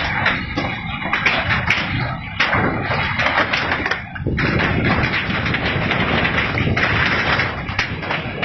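Dense rattling and knocking of things shaken by an earthquake, thickening into a steadier, heavier rattle about halfway through.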